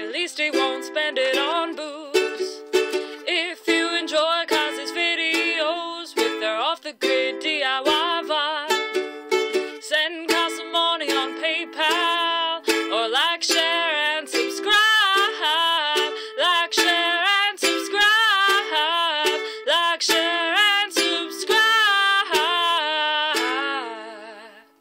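Ukulele strummed in a small room, with a wavering wordless melody line over it, fading out at the end.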